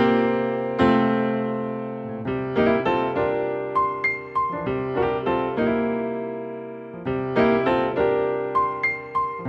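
Background music: an electric piano playing chords and single notes that strike and fade.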